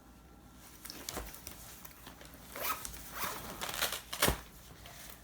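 A zipper being pulled in several short rasping strokes, the loudest a little over four seconds in.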